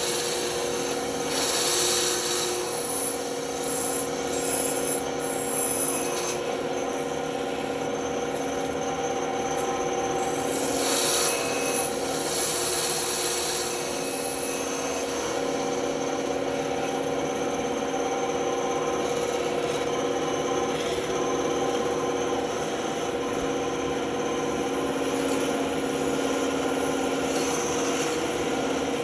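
Band saw running with a steady motor hum while its blade cuts wood, the hiss of the cut swelling and easing as the piece is fed through.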